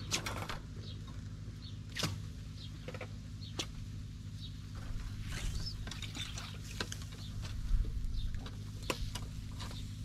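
Knife cutting raw lamb on a wooden table, with a handful of sharp taps of the blade and the pieces set down on a wire grill rack. Small birds chirp now and then over a steady low hum.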